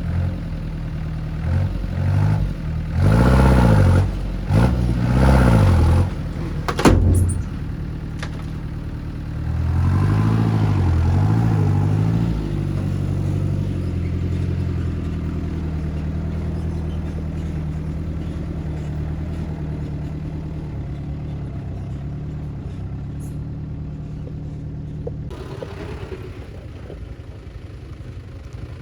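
Heavy diesel engine of earthmoving machinery revving up and down several times, with a sharp clank about seven seconds in. It then runs steadily and slowly gets quieter.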